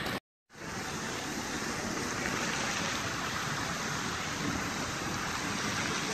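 Steady rushing and splashing of a large musical fountain's water jets. The sound cuts out completely for a split second just after the start, then resumes at the same level.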